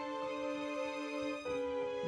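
Live band playing slow, sustained chords as the intro to a ballad, moving to a new chord about one and a half seconds in.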